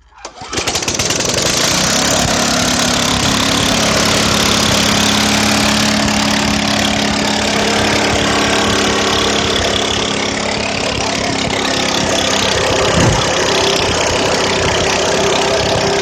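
Lawn mower engine with no exhaust catching and then running loud and steady, with a harsh, open-pipe sound.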